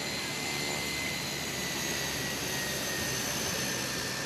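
Fertiliser-spreading farm plane's engine running steadily as the plane rolls past on the ground, with a high whine that drops slightly in pitch over the second half.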